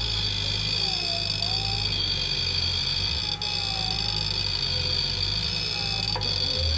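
Off-road vehicle engine running with a steady low drone that shifts in level now and then, and a faint wavering whine over it.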